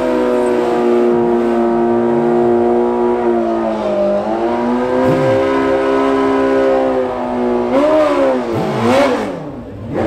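Hayabusa drag-bike engines held at a steady high rpm, dipping briefly about four seconds in, then revving up and down twice near the end.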